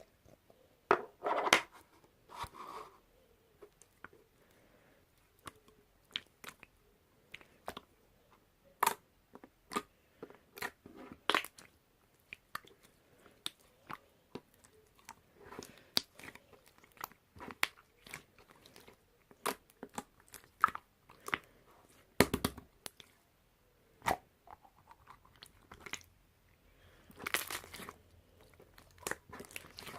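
Hands pressing, folding and stretching marbling slime, giving irregular sticky clicks and pops, with a few longer crackling stretches about a second in and again near the end.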